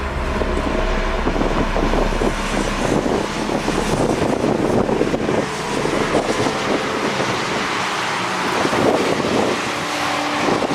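A car running at speed, with engine and road noise and wind buffeting the microphone.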